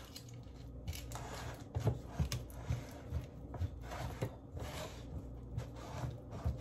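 Silicone spatula scraping and dabbing a chocolate mixture over a layer of biscuits in a springform pan, with irregular soft knocks as it meets the biscuits and the pan's rim.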